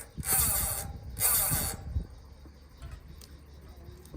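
Mountain bike freehub body turned by hand, ratcheting in two short bursts of about half a second each, then only faint scattered clicks. The freshly greased pawls are being worked to catch and engage.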